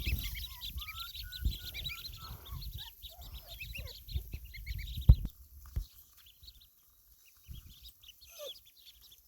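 Ducklings peeping rapidly in a chorus of short high rising notes, thinning out after about five seconds, with a couple of loud knocks in the middle.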